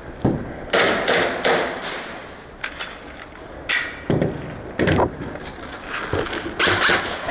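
Irregular thumps and short rustling scrapes, a few each second and unevenly spaced.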